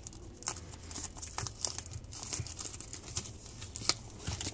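Clear plastic shrink-wrap on a smartphone box crinkling and crackling as fingers pick and peel at it, in scattered sharp crackles, the loudest about four seconds in.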